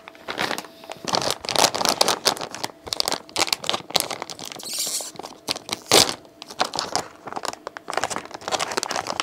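Shiny plastic mystery bag being torn and pulled open by hand: dense, irregular crinkling and crackling, with one sharper crack about six seconds in.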